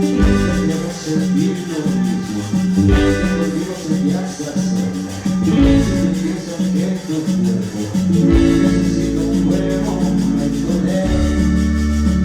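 Latin band music with guitar and percussion: an instrumental passage without vocals.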